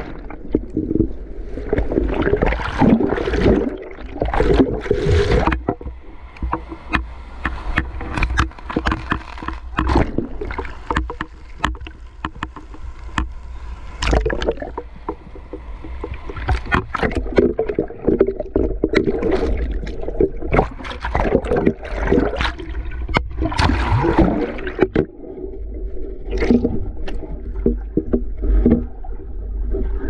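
Sea water churning and bubbling close around a snorkeler's camera as swells push him about on a coral reef. The water comes in irregular surges over a constant low rumble.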